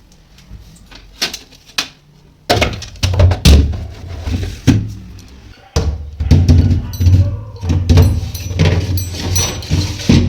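Food containers and items being put back onto refrigerator shelves: a run of knocks, clatters and heavy bumps, sparse at first and busy from about two and a half seconds in.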